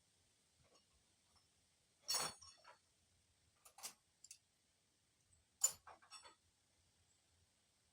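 Light metallic clinks and clatter from tools and parts being handled during mechanical work, in three short bursts about two seconds apart, with near silence between them.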